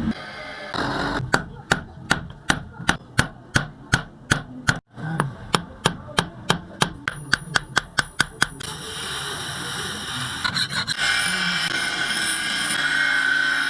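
A steel nail being hammered flat into a knife blank: about twenty sharp, ringing hammer blows, roughly three a second. About eight seconds in the hammering stops and a steady abrasive grinding of the metal takes over.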